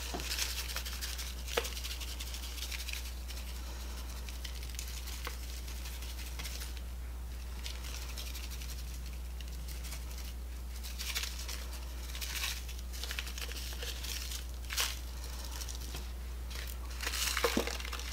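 Paper seasoning packet crinkling in short, faint bursts now and then as dry ranch seasoning mix is shaken out of it, over a steady low hum.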